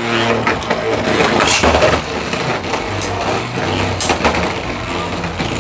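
Two Beyblade X spinning tops whirring and grinding as they spin across a plastic stadium floor, with sharp clacks as they strike each other, several times through the battle.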